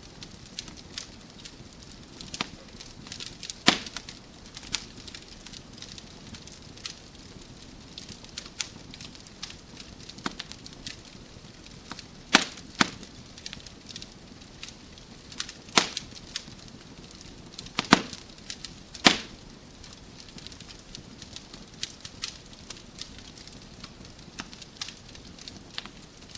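Wood fire crackling in a fireplace: a steady low hiss with frequent small irregular crackles. Several louder sharp pops stand out, a few seconds apart.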